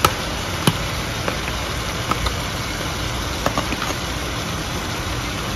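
Steady stove-top cooking noise: chicken pieces cooking in an oiled pan over the heat, a continuous hum and hiss with a few light clicks and pops scattered through it.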